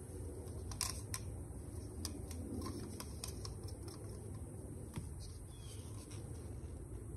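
Light clicks and taps of plastic paint cups being handled and set down, several in quick succession, over a steady low hum.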